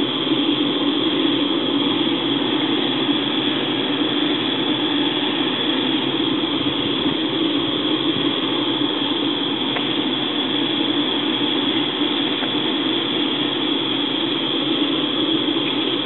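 Wood-fired aluminum-melting furnace running under forced air from an air compressor, a steady, even rushing noise that holds without a break.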